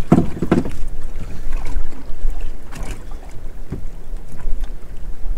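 Wind rumbling on the microphone aboard a small drifting boat, with a few light knocks near the start and later.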